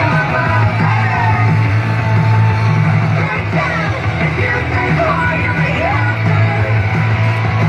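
Rock music with a singer over a steady bass and drums.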